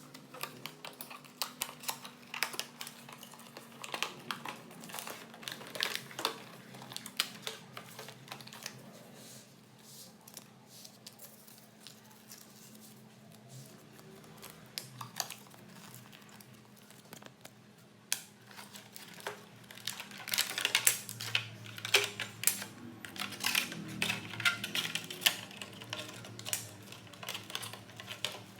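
Unboxing a Bloody A70 gaming mouse: scattered clicks and taps with crinkling of plastic packaging, sparse at first and much busier in the last third. A faint low steady hum runs underneath.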